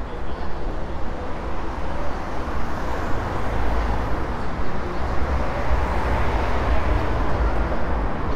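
City street traffic noise: a steady rumble of passing vehicles that grows fuller and louder from about three seconds in.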